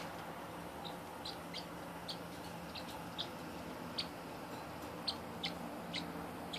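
Parrotlet giving about ten short, high chirps at irregular intervals.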